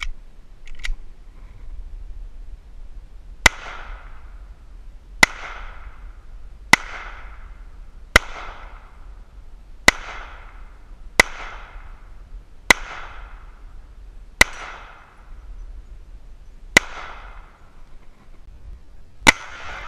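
Hi-Point JHP .45 ACP pistol firing ten shots at a slow, steady pace, roughly one every one and a half to two seconds, each report trailing off in a short echo.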